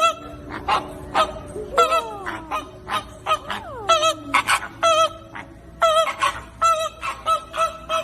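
A flock of flamingos honking: many short, nasal calls in quick, overlapping succession, with a couple of longer calls that fall in pitch about two seconds and three and a half seconds in.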